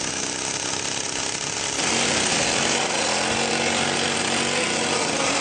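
Chainsaw cutting into the timber planking of a wooden boat hull. About two seconds in, it gives way to another handheld power tool running steadily on the hull.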